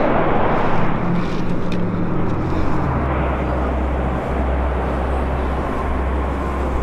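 Steady deep roar of Mount Bromo's active crater venting gas, a continuous rumble with a low hum under it.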